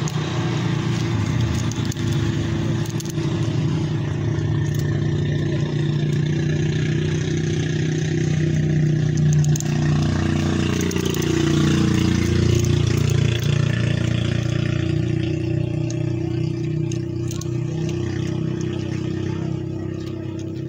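An engine running steadily, rising a little in pitch and loudness about ten seconds in, then settling back.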